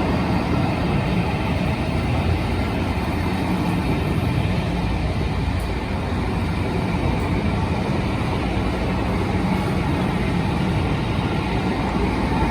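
Diesel-hauled train running through the station, a steady heavy rumble with no let-up.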